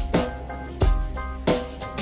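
Background music with a steady drum-kit beat, kick and snare hits, over held pitched notes.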